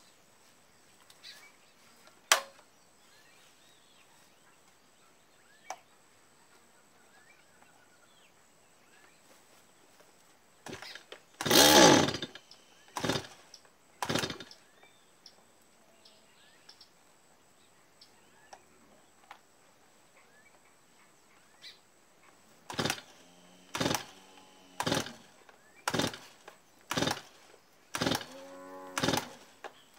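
Two-stroke Stihl gasoline chainsaw being pull-started by its recoil starter cord: a few hard pulls around the middle, then a quick run of seven pulls about a second apart near the end, each a short rattling whir of the engine cranking. The engine does not catch and run. A sharp click comes a couple of seconds in.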